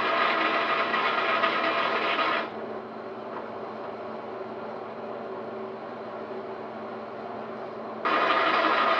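Steady mechanical hum of a motor running, made of many even tones. It drops noticeably in level about two and a half seconds in and comes back up to full level near the end.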